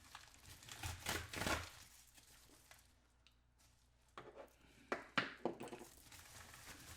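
Faint hand rustling of a shipping package being opened: irregular crinkling and tearing in the first second or so, a quiet spell, then a few sharp crinkles and clicks about five seconds in.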